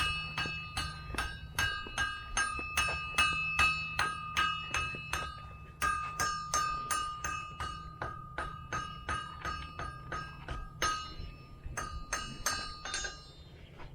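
Blacksmith's hammer striking iron on an anvil, a steady run of ringing blows about three a second. There is a brief break about six seconds in, and the hammering stops near the end.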